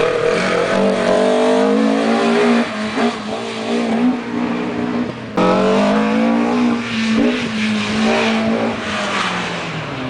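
A car engine revved hard and let off again and again as it is driven through a cone slalom, its pitch climbing, holding and dropping with each push and lift. About five seconds in the sound breaks off abruptly and picks up on another high rev that then falls away.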